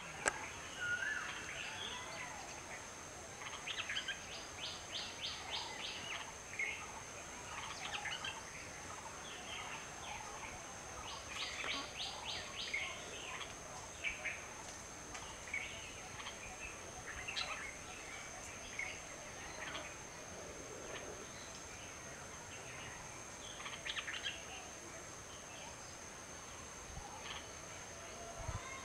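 Red-vented bulbul calling: short chirps and whistled notes scattered throughout, with a fast rattling run of repeated notes about four seconds in and again about eleven seconds in.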